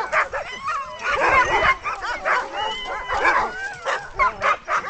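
Many sled dogs barking, yipping and whining at once, an excited kennel chorus set off by people in the yard. It swells twice, about a second in and again just after three seconds.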